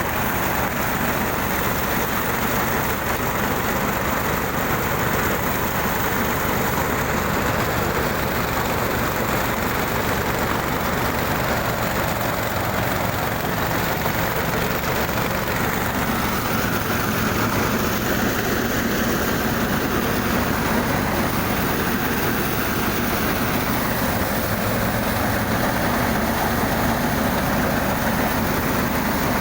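An engine-driven machine running steadily: a continuous loud hum and mechanical rattle that does not change.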